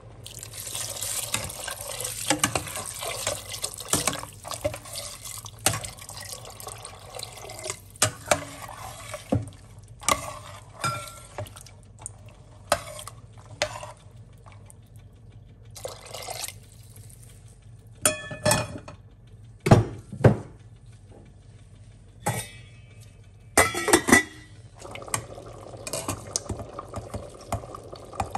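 Liquid poured into a stainless steel pot of red beans, a steady splashing hiss for the first several seconds. Then a metal spoon stirring in the pot, with sharp clinks and knocks against the pot's side, the loudest a little past halfway.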